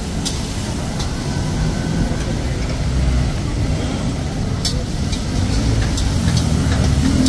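Steady low rumble of passing road traffic, with a metal spatula clinking and scraping against a wok several times.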